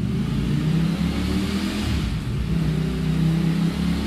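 Ducati Streetfighter V4's 1103 cc V4 engine running through its stock exhaust, heard close at the tailpipe outlet. It gives a steady engine note that grows a little stronger two to three seconds in.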